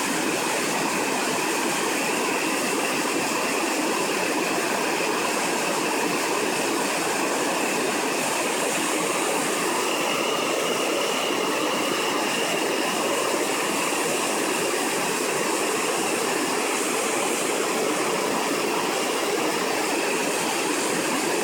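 Waterfall with water falling and rushing in a steady, even roar, unchanging throughout.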